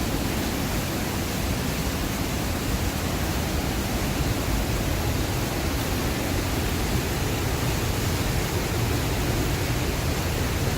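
Waterfall, falling water making a steady, even rush of noise that is heavy in the low end.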